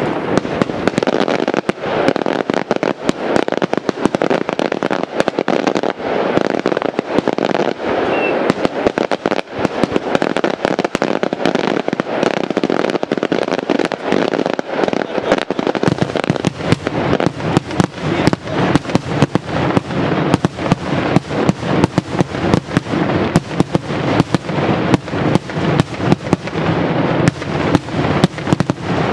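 Maltese daylight firework shells bursting in a long, rapid, unbroken run of bangs and cracks. From about halfway through the reports come heavier, with more low boom.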